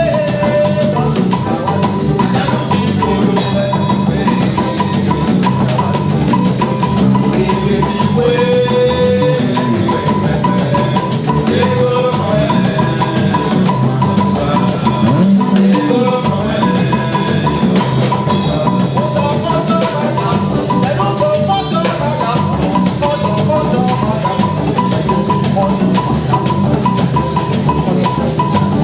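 Percussion-driven music with a steady, dense beat of drums and short melodic figures on top.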